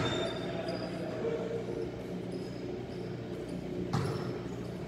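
Steady low hum and echoing hall noise on an indoor basketball court, with a single basketball bounce about four seconds in and a few faint, short high squeaks.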